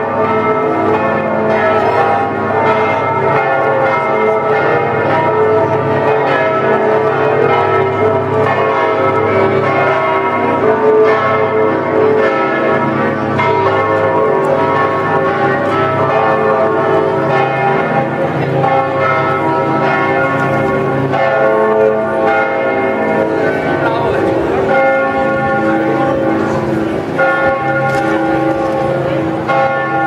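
Several large church tower bells ringing together in a continuous, overlapping peal, many pitches sounding at once without a pause.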